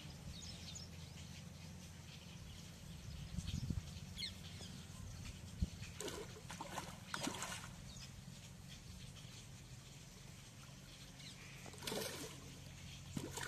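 Hooked rohu splashing and thrashing at the water's surface as it is pulled in on a hand line, with splashes about six seconds in and again near the end.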